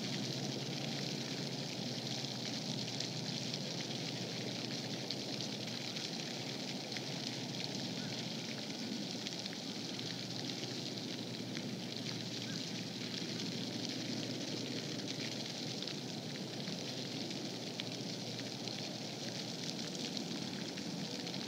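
Steady outdoor background hiss with faint scattered crackling, unchanging throughout; no distinct event stands out.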